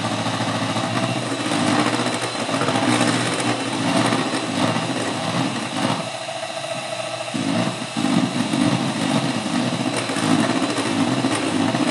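Handheld electric mixer running, its beaters whipping an egg-white and sugar marshmallow in a stainless steel bowl; a steady motor whirr that dips briefly about six seconds in.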